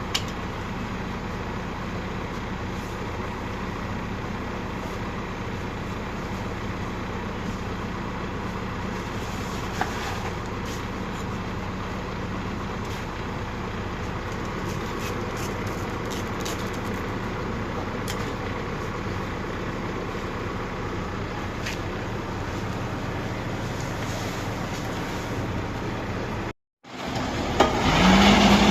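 Engine of a construction machine running steadily at a constant pitch, with a few faint clicks. Near the end the sound cuts out briefly, then a louder engine comes in and rises to a higher steady pitch.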